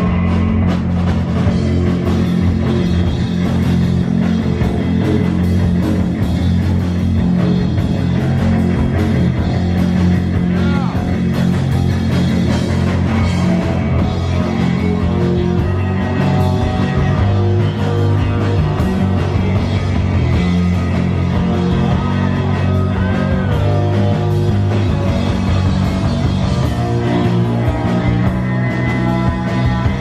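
Live rock band playing loud and steady, with distorted electric guitars over a pounding drum kit and a few guitar bends.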